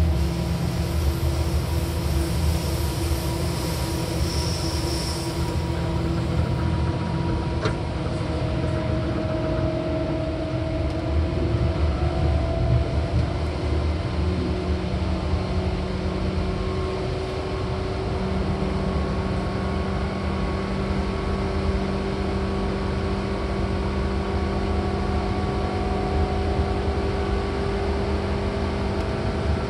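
Seibu 4000 series electric train running, heard inside the passenger car: steady wheel-and-track rumble with a motor whine that slowly rises in pitch. There is a single sharp click about eight seconds in.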